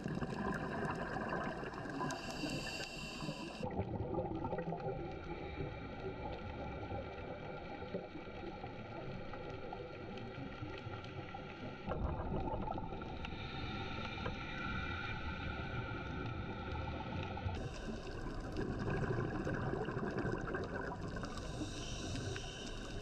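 Underwater ambience picked up by a camera in its housing: a muffled, steady wash of water noise and gurgling, with faint steady tones running through it. The sound changes abruptly at cuts between clips, a few seconds in, about halfway and again later on.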